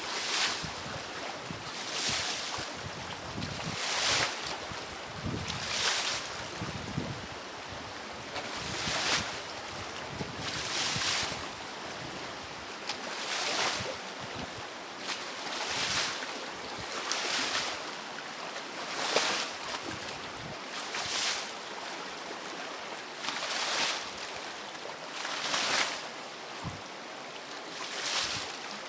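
Rough river water with waves surging and splashing, one wash of spray noise about every two seconds over a steady rushing of water.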